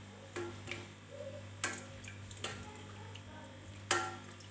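Plastic slotted spoon knocking against a stainless steel saucepan and a plastic blender jug while scooping out boiled red peppers: scattered light clicks and knocks, the sharpest about a second and a half in and near the end, the last ringing briefly. A steady low hum lies under them.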